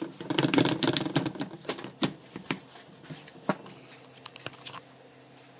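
Slotted spatula scraping and tapping against a nonstick frying pan while scrambling eggs: a quick run of clicks and scrapes that thins out after about two seconds to a few separate taps, then grows quiet.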